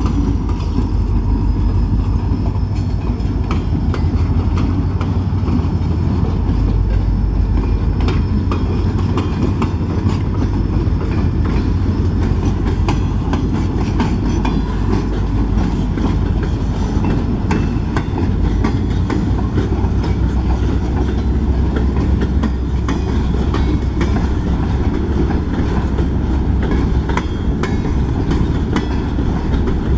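Escanaba & Lake Superior Railroad freight train passing at close range. The trailing SD40 diesel locomotive goes by at first, then empty flatcars and hopper cars roll past with a steady low rumble and clickety-clack of wheels over rail joints. A faint high squeal runs through the first half.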